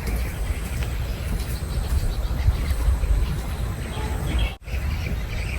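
Low steady outdoor rumble with a few faint bird chirps, broken by a brief dropout near the end.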